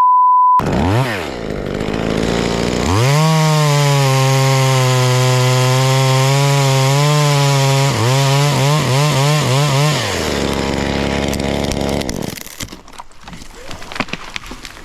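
A short censor bleep, then a small two-stroke knockoff top-handle chainsaw (a copy of the Echo 2511T) revs up and runs at full throttle, cutting through a rigged section of dead tree. Its pitch wavers as the cut finishes about eight seconds in. It drops back about ten seconds in and stops about two seconds later.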